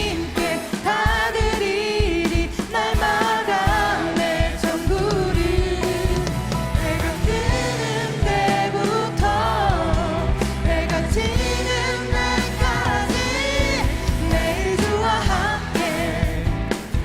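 Worship band playing with voices singing a contemporary praise song.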